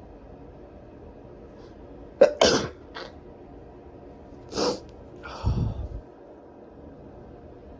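A person sneezing: a sharp, loud sneeze about two seconds in with a short catch after it, then another sneeze around four and a half seconds that trails into a noisy burst with a low rumble. The sneezes are deliberately induced.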